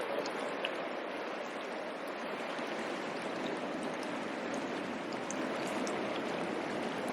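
Mountain stream flowing steadily, a continuous rush of water.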